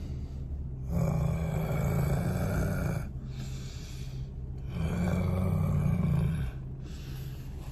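A man's low, gravelly growling vocal sounds in two long bouts, about a second in and about five seconds in, with quieter breath-like pauses between.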